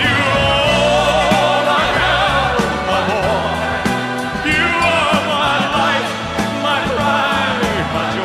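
Background music: a slow ballad's break between verses, with wordless choir vocals over a steady bass line.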